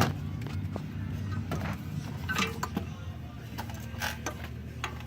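A few sharp clicks and light rattles as a brake pad wear sensor's wire is worked into its clips, over steady background music.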